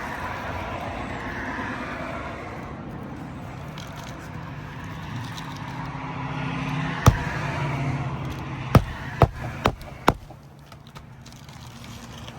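Roofing tools working on asphalt shingles to free the nails: scraping, then sharp metal strikes. One strike comes about seven seconds in, and four more follow quickly about two seconds later.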